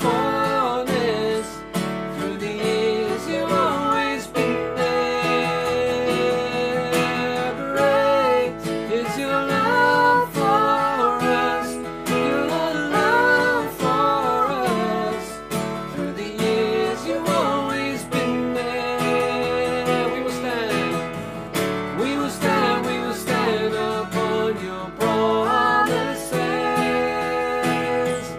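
A man and a woman singing a worship song together over strummed acoustic guitar and keyboard.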